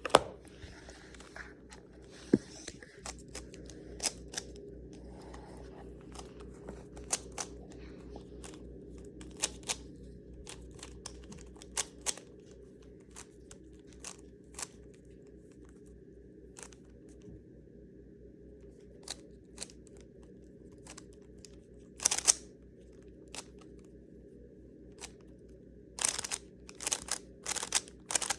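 Rubik's Cube being twisted by hand: irregular plastic clicks and clacks as the layers turn, with quicker runs of turns near the end.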